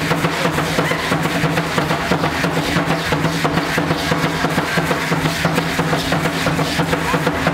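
Drum music for Mexica (Aztec) ceremonial dance, a fast, even beat, with the dancers' ankle rattles shaking on their steps.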